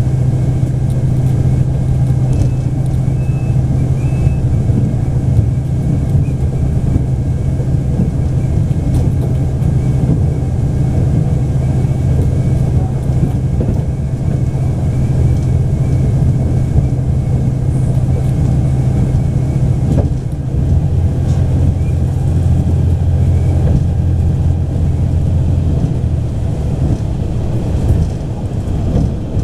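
A Taiwan Railways DR3000 diesel multiple unit under way, heard from on board: a steady diesel engine drone over the wheel and rail running noise. About twenty seconds in, the engine note drops lower.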